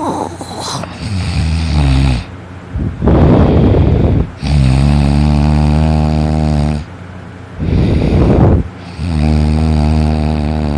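Loud snoring in repeating breaths, each a rough, noisy snort followed by a longer, steady, low buzzing snore of about two seconds, coming about every four to five seconds.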